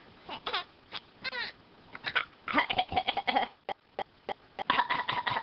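A talking parrot making imitation coughs: a run of short, raspy, cough-like calls in quick clusters, a few with a falling pitch. They are mimicry of its owner's cough.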